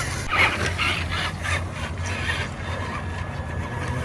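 Traxxas Stampede radio-controlled monster truck running, its electric motor and geared drivetrain heard as an uneven mechanical grinding and rattling.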